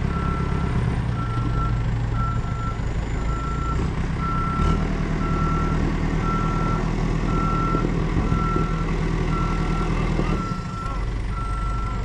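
Caterpillar backhoe loader backing up: its reversing alarm beeps steadily, about three beeps every two seconds, over the running diesel engine. The engine revs up about five seconds in and drops back near the end.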